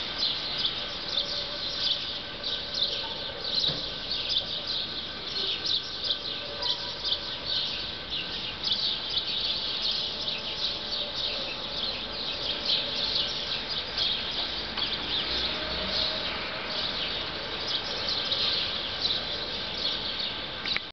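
Birds chirping busily, with many short overlapping chirps that go on without a break.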